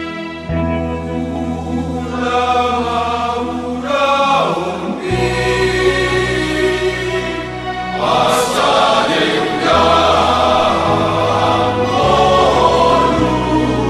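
Church choir singing a hymn over a keyboard accompaniment with sustained bass notes.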